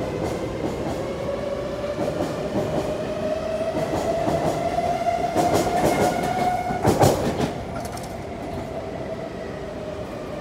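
Electric metro train pulling away, its traction motor whine rising steadily in pitch as it accelerates, over the rumble of wheels on rail. About seven seconds in, a burst of sharp wheel clacks over rail joints is the loudest moment, after which the sound drops lower and quieter.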